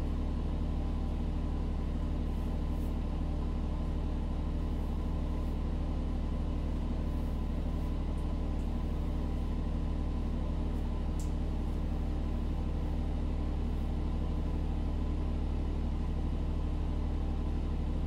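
Steady low mechanical hum of a running motor or fan, several held tones with no change in pitch or level. A few faint, brief rustles of a hairbrush drawn through wet hair sit on top of it.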